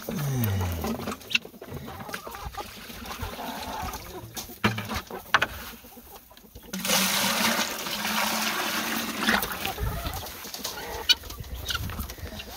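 Chickens clucking, with knocks from a plastic bucket being handled. About seven seconds in, a couple of seconds of rushing splash, like water poured out of the bucket.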